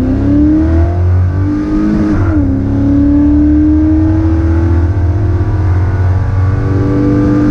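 Car engine accelerating hard, its pitch climbing, dropping sharply at a gear change about two seconds in, then climbing slowly again over a deep rumble.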